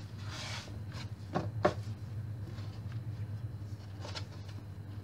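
Hands pressing and working pizza dough on a floured board, with soft rubbing and short knocks. Two knocks come close together about a second and a half in, and another comes near the end, over a steady low hum.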